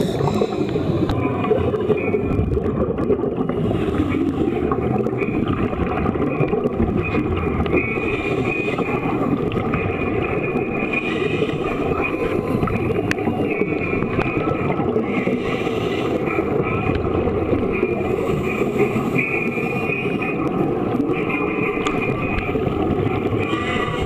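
Underwater sound in a scuba training pool picked up by a submerged camera: a steady, muffled rushing rumble with bubbling from the divers' regulators.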